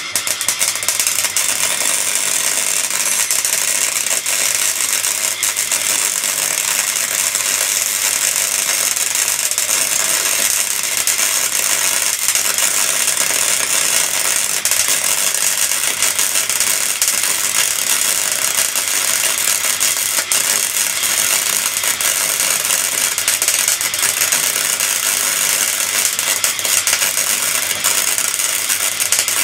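MIG welding arc on steel plate, copper-coated mild steel wire under CO2 shielding gas: a loud, continuous crackling sizzle made of fine rapid pops, starting abruptly as the arc is struck.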